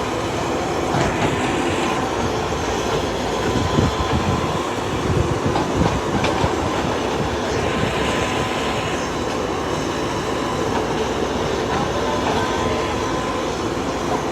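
Excavator running while digging soil: a steady, loud engine and hydraulic noise, with a few brief metallic knocks from the working bucket and tracks.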